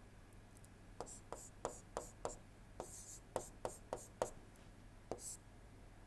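Faint stylus-on-tablet writing sounds: about a dozen short sharp taps of the pen tip, with a few brief scratchy strokes, starting about a second in as the letters are written.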